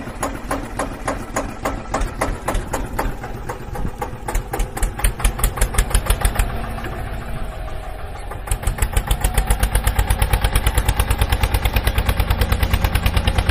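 Tractor engine sound effect: an engine chugging with a fast, rhythmic beat, uneven at first, then louder and more even from about eight seconds in.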